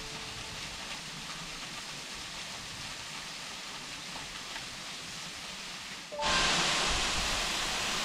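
Sankenbach waterfall's falling water rushing as a steady hiss. About six seconds in it cuts abruptly to a louder, closer rush of the same fall.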